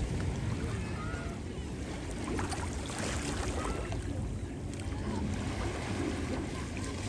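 Sea waves washing onto a beach, a steady wash with a low wind rumble on the microphone. A few short, faint bird chirps come in the first couple of seconds.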